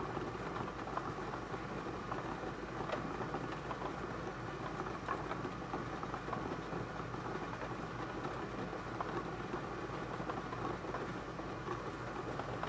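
Bingo ball blower machine running steadily, with balls lightly clicking and tumbling inside it as they are mixed between calls.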